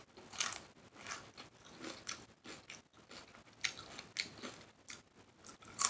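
A person chewing a mouthful of shrimp salad close to the microphone with the mouth open: irregular wet smacks and light crunches.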